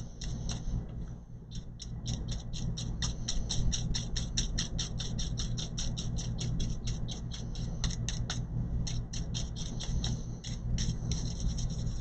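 A small brush scrubbing dust out of a laptop's insides in quick, even strokes, about five scratchy ticks a second, over a steady low hum.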